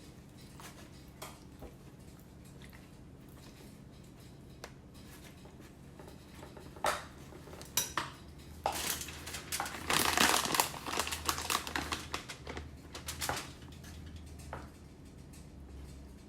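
Kitchen clatter: dishes and cutlery knocking and clinking, a few scattered clicks, then a busier run of clattering in the middle that is loudest about ten seconds in.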